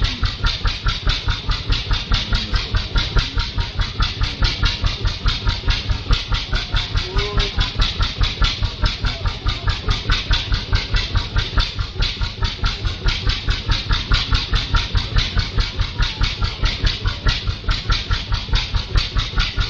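Steady, even chugging of an engine running at idle, about five beats a second.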